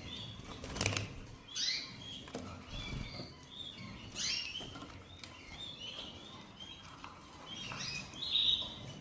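Canaries chirping in short, repeated calls, with a brief sharp sound about a second in.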